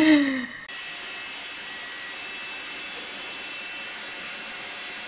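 A brief falling voice sound cut off at the start, then a steady, even whooshing noise with a faint high whine, like a fan or small motor running.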